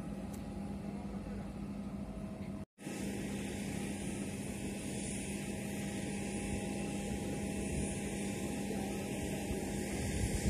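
Steady, distant jet noise of BAE Hawk jets' turbofan engines, with a brief break in the sound about a third of the way in.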